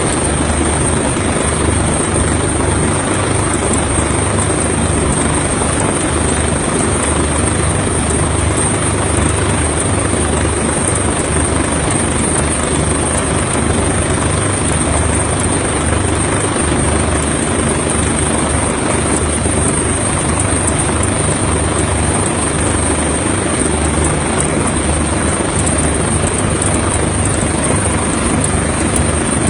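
Coastguard helicopter's rotor and engine running loud and steady.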